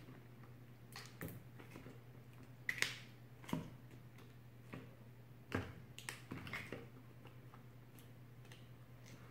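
Sticky slime being pressed with fingers into the neck of a small bottle, making scattered faint squelching clicks and pops, a few louder ones between about three and six seconds in.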